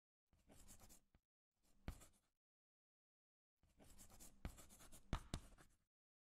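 Faint chalk scratching on a chalkboard as words are written: three spells of scratchy strokes with a few sharp taps of the chalk. The last spell, starting about three and a half seconds in, is the longest.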